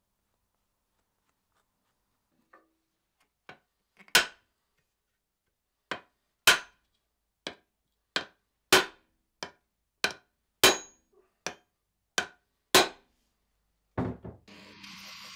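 Over a dozen sharp knocks on the end of a wooden axe handle, irregularly spaced, faint at first and then louder, seating the forged bearded axe head onto the handle. Near the end, a belt grinder starts with a steady hiss.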